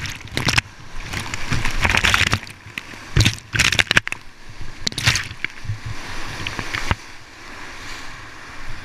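Whitewater rapids rushing and splashing over a kayak-mounted camera, with irregular loud surges as the water washes over the microphone. After about seven seconds the surges stop and the river's steady rush is quieter.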